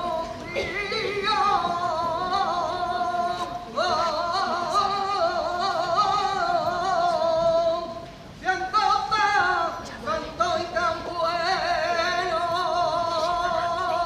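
A saeta: a single voice singing unaccompanied in flamenco style, in long, wavering, ornamented phrases with heavy vibrato, pausing briefly for breath twice.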